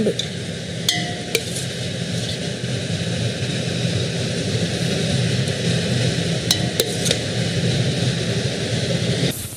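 Kitchen chimney exhaust fan running with a steady whir over a low hum, with a few sharp clinks of a serving spoon against a plate.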